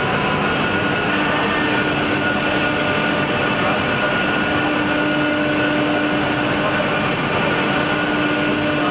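Homag BAZ CNC machining centre running, a steady even machine noise with a faint steady whine in it.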